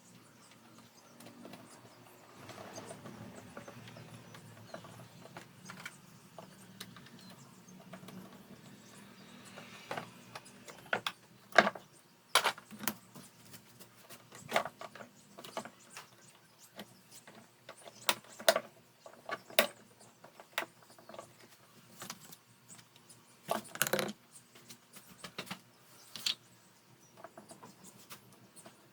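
Hard plastic parts of an electric fan being handled: a soft rustle for about the first ten seconds, then scattered sharp clicks and knocks, some in quick clusters.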